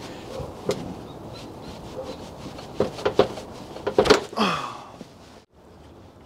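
Metal clicks, knocks and scraping as a stuck cap is worked off an old brake master cylinder held in a bench vise, with the loudest clatter about four seconds in.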